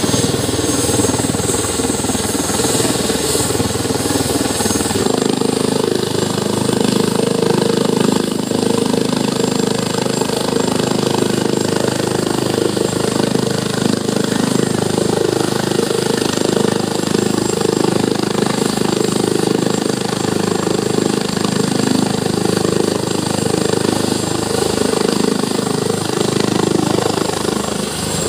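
Airbus H145 helicopter running on the ground with its turbine engines and rotor turning: a loud, steady hum with a rapid chop from the blades. About five seconds in the sound shifts as the deepest rumble drops away.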